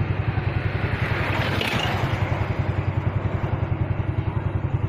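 A small engine idling steadily, with a rapid, even pulse.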